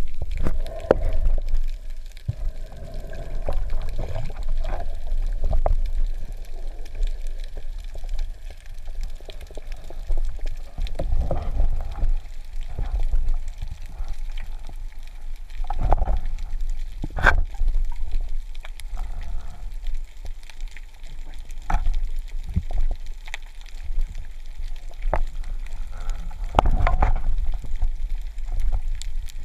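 Water noise recorded underwater while a diver swims: a steady low muffled rumble, with swells of gurgling water every few seconds and scattered sharp clicks and knocks.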